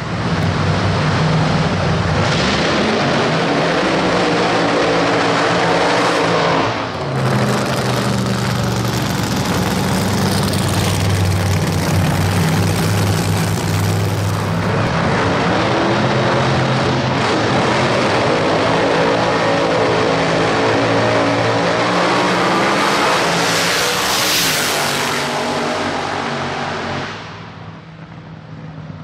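Supercharged V8 drag car engine running at high revs, loud and revving in surges with a brief dip about 7 seconds in. About 27 seconds in it falls off sharply to a quieter, more distant engine sound.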